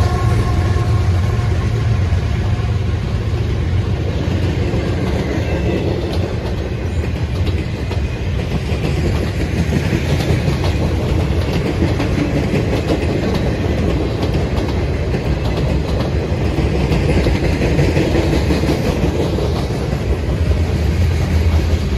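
A train rolling past close by: a steady, loud rumble of steel wheels on the rails as its cars go by.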